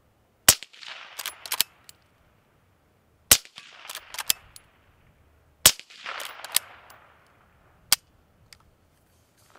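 Suppressed Henry lever-action .22 Magnum rifle firing: three shots about two and a half seconds apart, each followed by a short echo and the click of the lever being worked, and one more sharp crack near the end. The rifle is firing supersonic rounds, which its shooter expects to be hearing safe through the suppressor.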